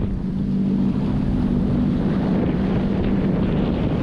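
Jet ski engine running steadily at speed, with wind buffeting the microphone and water spray hissing.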